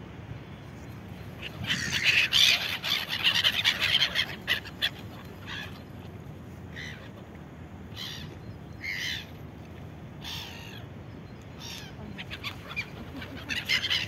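Flock of black-headed gulls calling with harsh squawks: a flurry of overlapping calls about two seconds in, then single calls every second or so, and another flurry near the end.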